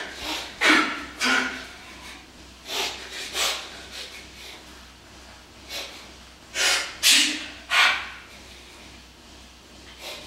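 A weightlifter's short, sharp, forceful breaths and snorts while psyching up before a heavy deadlift. There are about eight, in quick clusters with a pause near the middle.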